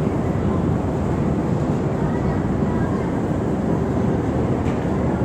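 River ferry's engine running steadily underway, an even low rumble.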